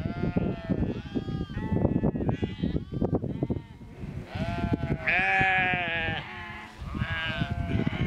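A flock of sheep bleating, many calls overlapping, the loudest a long bleat about five seconds in, over a low rough rumbling noise.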